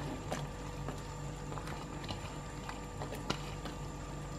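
Quiet steady hiss of a wok of water heating on a gas stove, with a few light ticks as cut long beans are dropped into the aluminium wok.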